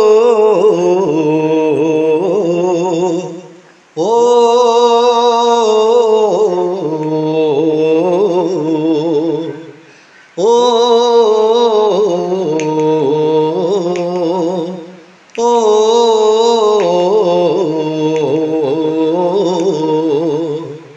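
A voice singing a slow wordless melody in long drawn-out phrases of about five seconds each, with a wavering vibrato and a short break between phrases.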